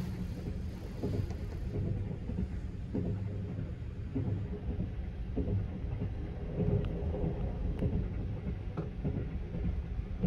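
Sunrise Seto sleeper train, a 285 series electric train, running along the line, heard from inside the carriage: a steady low rumble with a few faint clicks and rattles.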